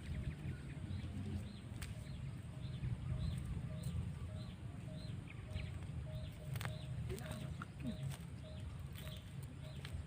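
A bird's short call note, repeated evenly about twice a second, over a steady low rumble.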